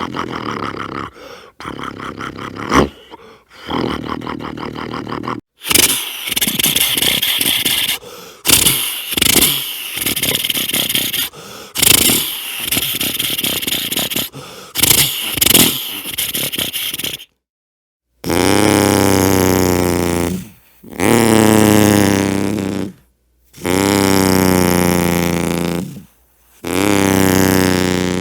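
A man making sound effects with his voice and mouth. First comes a run of rough, hissing, rasping noises in short bursts. Then come four separate pitched tones of about two seconds each, every one sliding downward.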